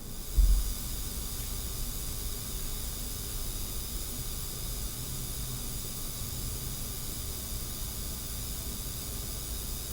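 Steady hiss with faint high whining tones running through it, preceded by a low thump about half a second in.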